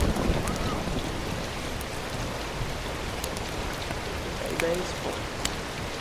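Steady hiss of ocean wind and water, with low rumbles, a few faint clicks and a brief faint distant voice.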